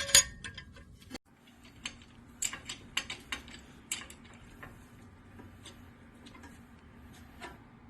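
Irregular metal clicks and clinks as a steel C-clamp is turned against a brake caliper to push its piston back for new pads, over a faint steady hum.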